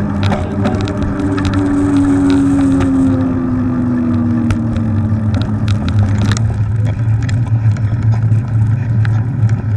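Wind rushing over an action camera's microphone and knobby mountain-bike tyres rolling, with frequent small clicks and rattles from the bike. A hum falls slowly in pitch during the first half. The noise changes character about six seconds in.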